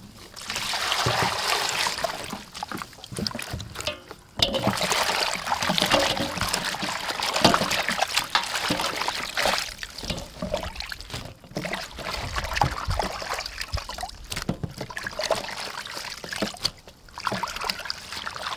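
Water splashing and trickling in a stainless steel bowl as hands swish and rinse leafy greens and onions, in several bouts with brief pauses between them.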